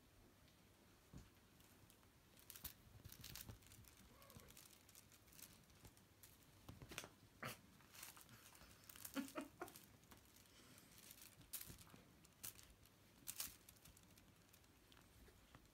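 Faint, scattered rustling and scratching of two black kittens' paws and a feather wand toy on a fleece blanket as the kittens play, in irregular short bursts.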